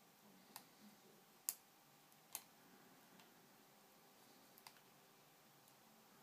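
Picking tools working the pins of a KASP high-security padlock: a few short, sharp clicks, three in the first two and a half seconds and a quick pair a little before five seconds, over near silence.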